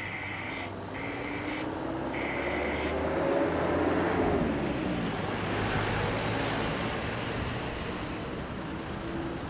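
Airbus A320 airliner's twin jet engines running at high power on the takeoff roll: a steady rushing noise that swells to its loudest about four seconds in, with a faint low tone sliding up and then down beneath it.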